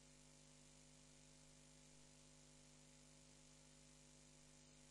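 Near silence: room tone with a faint steady hum and hiss.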